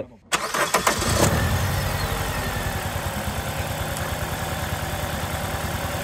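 A 2003 Toyota Matrix XRS's 2ZZ 1.8-litre four-cylinder engine is cranked over and catches after about a second, then idles with a steady pulsing beat. The cylinder-one misfire is still present.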